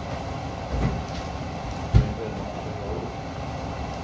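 Large stockpot of fish-head stew boiling on the stove, a steady low bubbling rumble. A soft knock comes about a second in and a sharper, louder knock about two seconds in.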